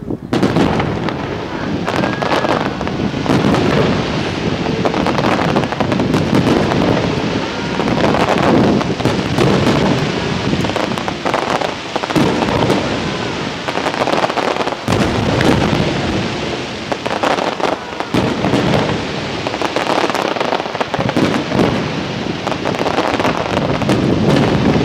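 Aerial firework shells bursting in quick succession, a dense, continuous barrage of bangs that starts suddenly.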